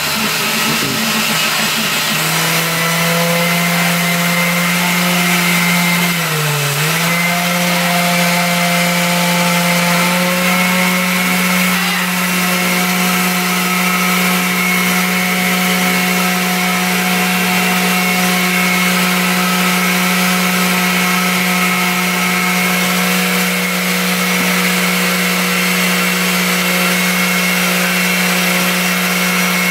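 Countertop blender motor running steadily, blending a thick protein shake of milk, fruit, oatmeal and peanut butter. Its pitch sags briefly about six seconds in, then holds steady.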